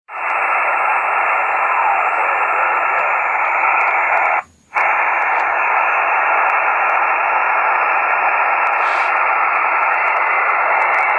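Steady receiver hiss from the speaker of an Icom IC-7000 transceiver tuned to the 2 m satellite downlink near 145.965 MHz, with only static and no clear signal. The hiss cuts out briefly about four and a half seconds in.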